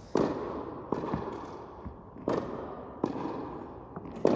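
Tennis balls being served: about six sharp hits, racket on ball and ball on court, each echoing in a large indoor tennis dome. The last hit is the loudest.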